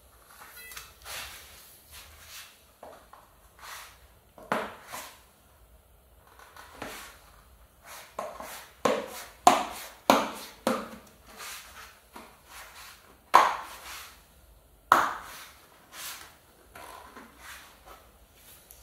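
A tubeless road tyre being worked by hand onto a bicycle rim: irregular knocks, slaps and rubbery thumps as the tyre bead is pushed over the rim and the wheel is handled. The knocks come in a quick cluster about halfway through, with two louder ones later.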